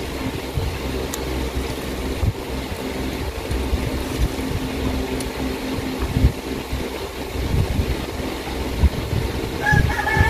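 Steady low mechanical hum, a drone of a few held low tones with irregular low rumbles under it. Near the end a brief higher pitched sound cuts in.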